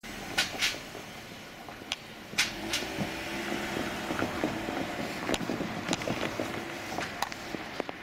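Steady road-vehicle running noise at a railway level crossing, broken by sharp knocks: two close together about half a second in, two more about two and a half seconds in, and a few lighter ones later.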